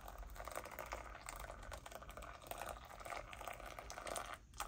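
Just-boiled water poured from a wide-mouthed kettle onto coarse-ground coffee in a cupping bowl, a steady splashing pour as the bowl fills, easing off briefly near the end.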